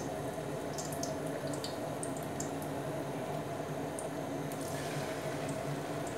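Rice-flour vadas frying in hot oil in a pan: a steady sizzle with small crackles and pops. A little after halfway the sizzle grows fuller as another shaped vada is lowered into the oil.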